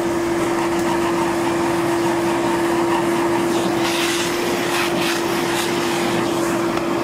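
Vacuum cleaner running with a steady whine and rush of air, its nozzle worked over the pleats of a clogged cabin air filter to suck the dust out. There is a little scratching of the nozzle on the filter about four to five seconds in.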